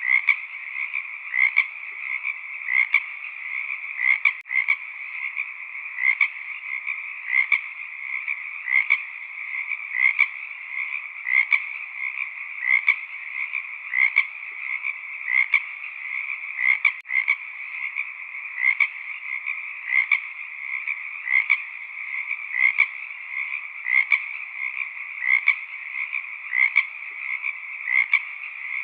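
Frog chorus: a dense, steady background of many calling frogs, with one louder call repeating at an even pace of about once every second and a half.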